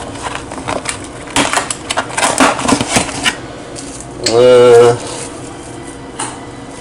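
Light clatter and rustling of kitchen handling as a baked potato is topped, in a string of small clicks over the first three seconds. Midway a man's short hummed voice sound, about half a second long, is the loudest thing.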